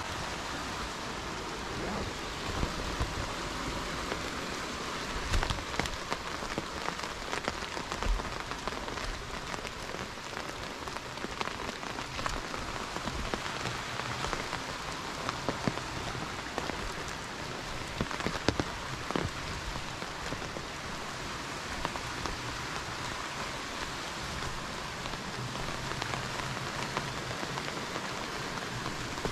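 Steady rain falling, with many separate drops ticking over a constant hiss.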